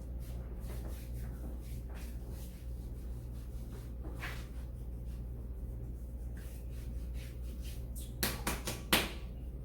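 Steady low hum with a few faint ticks. Near the end comes a quick run of about five sharp knocks, the last one the loudest.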